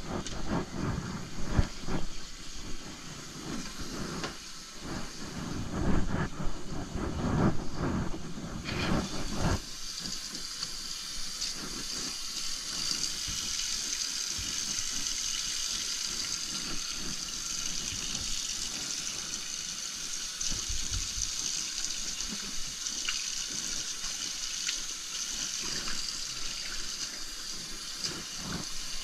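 Irregular rubbing and knocking as a rag wipes a wet tile floor, for about the first ten seconds. Then a kitchen faucet runs steadily into a stainless steel sink, with a gloved hand rinsing the rag under the stream.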